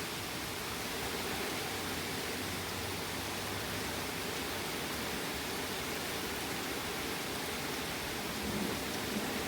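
Steady hiss of thunderstorm rain. A low rumble of thunder begins to build near the end.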